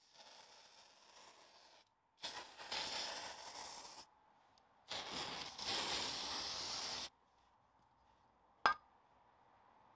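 Aerosol can of silicone spray hissing in two bursts of about two seconds each, after a fainter, shorter hiss at the start, as lubricant goes onto a Land Rover chrome swivel ball before its oil seal is fitted. A single sharp click near the end.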